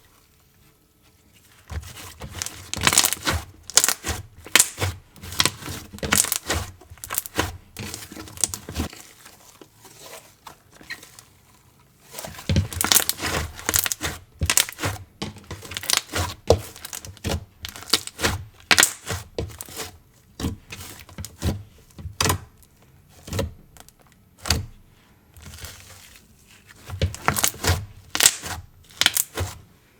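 Slime being squished, stretched and poked, making dense sticky crackling and popping clicks, with brief pauses near the start and about a third of the way in.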